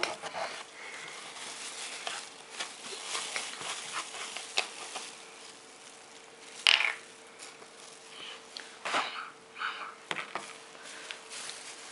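Metal spoon stirring and scraping a gritty baking-soda mixture in a small cup, with scattered clicks of the spoon against the cup and a louder knock about two-thirds of the way through. A faint steady hum runs underneath.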